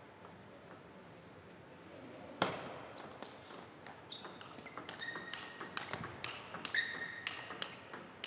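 A table tennis rally: the celluloid-type ball clicks sharply off the rubber-faced paddles and bounces on the table in quick succession, starting with the serve about two seconds in. Short high squeaks from the players' shoes on the sports floor come in between the hits.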